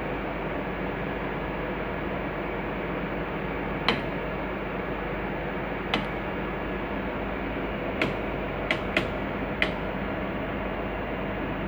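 A faulty car starter clicking six times at uneven intervals as the key is turned, without the engine cranking. The click of the starter with no cranking is the sign of the faulty starter. The clicks sit over a steady background hiss.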